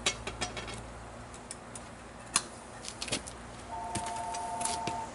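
Scattered light metal clicks and taps, with one sharp click about two and a half seconds in, as metal tools and a crucible are handled over a burner. In the last second and a half a steady two-note tone sounds.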